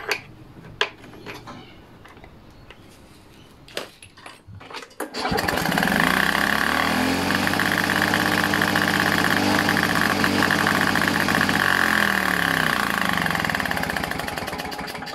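A Victa two-stroke lawnmower engine starts about five seconds in, after a few light clicks of handling at the engine. It picks up speed and runs steadily and quite very noisy, on its faulty decompression valve with the restrictor removed, then slows and fades near the end.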